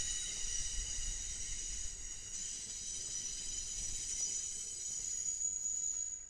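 Wheels of Amtrak Superliner bi-level passenger cars squealing as they roll around a curve: a steady high-pitched squeal of several tones over a low rumble of the train, cutting off suddenly near the end.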